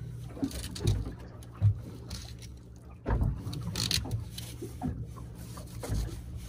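Boat engine idling with a steady low hum, with scattered knocks and bumps from handling, one sharp knock about one and a half seconds in.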